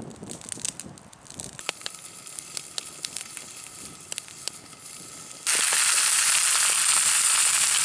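Wood campfire crackling with scattered sharp pops. About five seconds in, a loud steady hiss starts abruptly.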